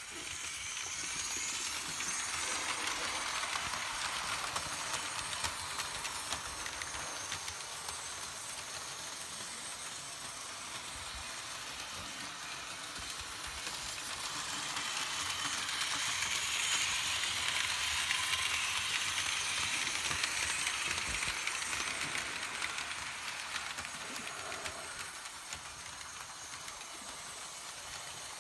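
Märklin HO-scale S 3/6 model steam locomotive running with a train of coaches on Märklin M-track, giving a steady hiss with the running noise of the train on the metal track. It grows louder in the middle as the train comes nearer and eases off towards the end.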